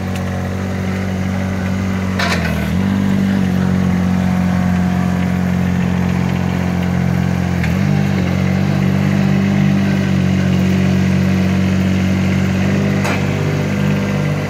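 A 2016 Multi One articulated mini loader's engine runs steadily as the machine is driven around. Its pitch dips briefly twice, about two and about eight seconds in. There are two short knocks, about two and about thirteen seconds in.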